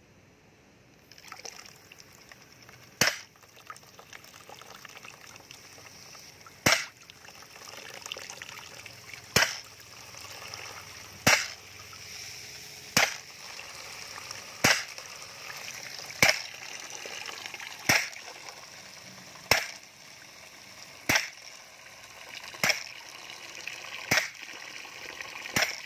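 Anest Iwata DDP-120B air-operated double-diaphragm paint pump running on test after a repair. It gives a sharp pop at each stroke, the first about three seconds in, then quickening to a steady beat of about one every second and a half. Between the pops, liquid from the discharge hose runs and splashes into a plastic bucket, growing louder.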